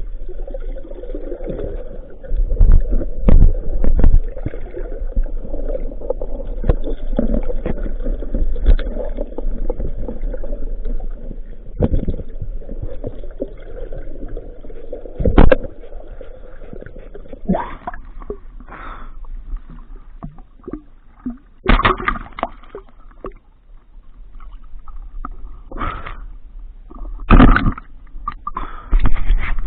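Muffled water sound picked up through a waterproof camera housing during spearfishing: water rushing and gurgling, with repeated sharp knocks and thumps, the loudest about three, fifteen, twenty-two and twenty-seven seconds in.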